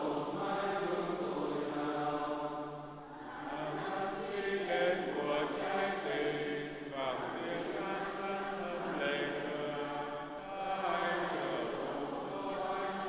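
Voices chanting a Vietnamese Catholic prayer from the Liturgy of the Hours, in several long, slow phrases with held notes.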